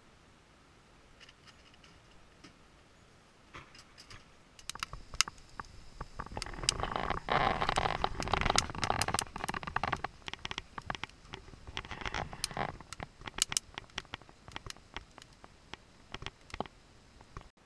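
Split firewood burning in a wood-burning tent stove, crackling and popping. Sharp snaps begin about four seconds in, come thickest in the middle, then thin out to scattered pops.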